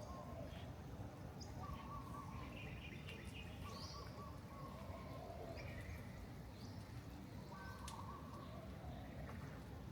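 Several birds calling and chirping: short repeated lower calls every second or two and brief higher chirps, over a steady low background hum.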